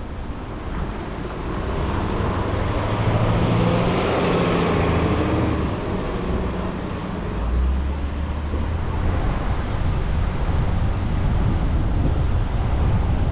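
Road traffic on a rain-wet street: steady rushing road and tyre noise with wind on the microphone, growing louder and peaking a few seconds in.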